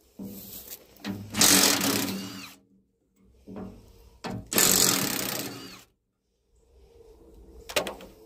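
Cordless drill-driver spinning bolts out of a steel plate: a short burst early on, then two runs of about a second and a half each with a brief burst between, the motor speed rising and falling. A sharp click near the end.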